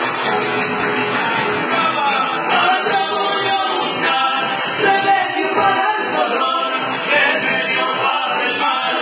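Argentine folk gato performed live: acoustic guitar strumming accompanies a singing voice, which comes in about two seconds in.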